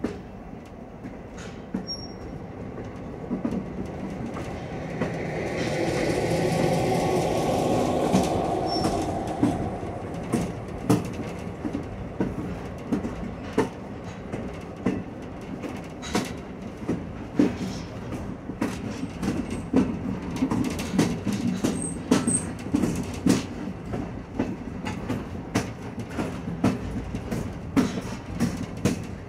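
Railroad passenger car rolling along the track, its wheels clacking over rail joints in a run of sharp, repeated clicks. A louder swell of rushing noise comes about five to ten seconds in.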